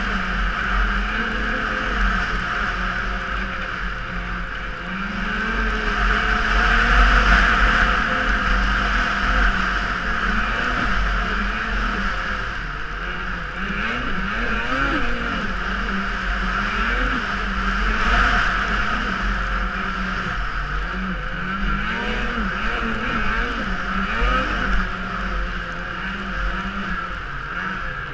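Snowmobile engine running under changing throttle, its pitch rising and falling, over a steady hiss and low rumble of wind on the microphone.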